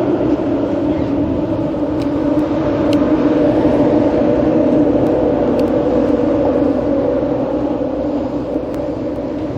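Fishing boat's engine running steadily, a loud, even drone.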